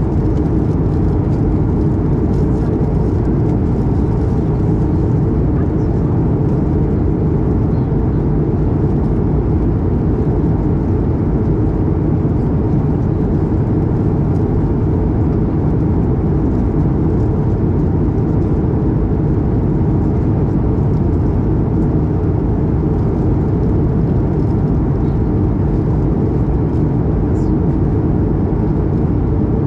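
Steady cabin noise inside an Airbus A220-300 in flight: the even drone of its Pratt & Whitney geared turbofan engines and the airflow over the fuselage, heaviest in the low range and unchanging throughout.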